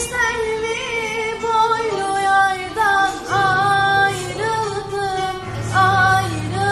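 A female voice singing long held notes that waver in pitch, over guitar accompaniment.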